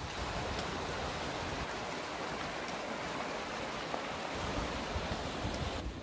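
Mountain stream running over rocks in a rocky valley, a steady rushing of water. Low wind rumble on the microphone comes in over the last couple of seconds.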